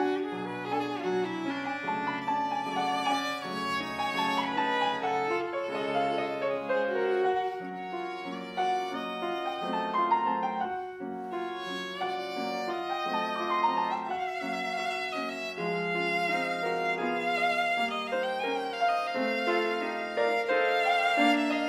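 Viola playing a classical piece: an unbroken passage of changing bowed notes.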